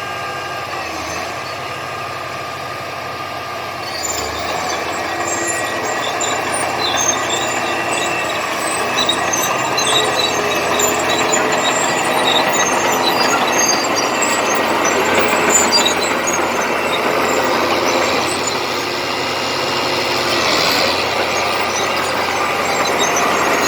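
Komatsu D70LE crawler bulldozer's diesel engine running, getting louder about four seconds in as it works, with high squeaks from its steel tracks.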